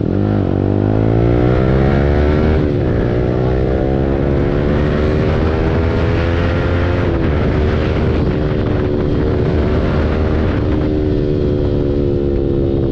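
Yamaha R15 V4's 155 cc single-cylinder engine through an aftermarket Akrapovic full-system exhaust, accelerating hard through the gears. The pitch rises, drops sharply at an upshift about three seconds in and again about seven seconds in, and climbs each time. Near the end the revs ease off slowly as the throttle is held lighter.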